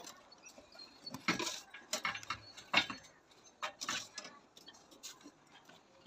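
Irregular taps and short scrapes of hand work on masonry, about half a dozen spread over a few seconds.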